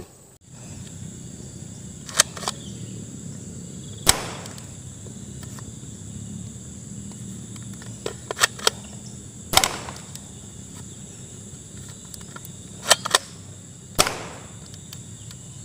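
Plastic toy dart blaster being cocked and fired at targets: scattered sharp clicks and snaps, some in quick pairs, with three louder snaps that each trail off briefly.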